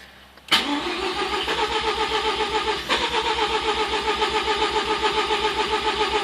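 Starter cranking the Mazda RX-7's rotary engine, kicking in suddenly about half a second in and turning over in a steady rhythmic pulse, about four beats a second, without the engine firing. The engine cranks but won't start after an engine swap; the owner wonders if it is flooded.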